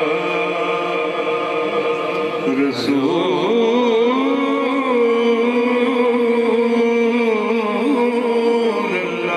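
A man's voice chanting a naat (devotional praise poem) into a microphone, in long, drawn-out held notes that waver and glide in pitch.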